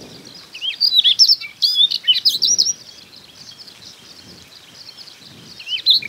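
Male Siberian rubythroat singing: one quick phrase of varied, high whistled notes sliding up and down, about two seconds long, then a pause, with the next phrase starting near the end.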